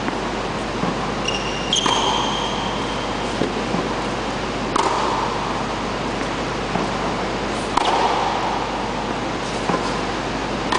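Tennis rally: a racket strikes the ball four times, about three seconds apart, each hit a sharp pop with a short echo, and fainter ball bounces come in between. A couple of brief high squeaks come about two seconds in, over a steady background hiss.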